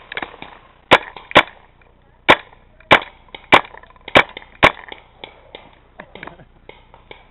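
Paintball markers firing: seven sharp shots at an uneven pace over about four seconds, followed by fainter scattered clicks.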